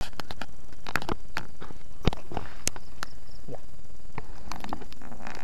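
Close handling noise: irregular clicks and rustles, one sharper knock about two seconds in, over a steady background noise.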